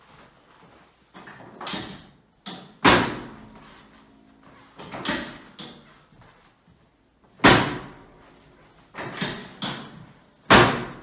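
Chiropractic treatment table thudding during a chiropractic adjustment: a series of sharp knocks. The three loudest come about 3, 7.5 and 10.5 seconds in, each with a short ringing tail, and smaller knocks fall between them.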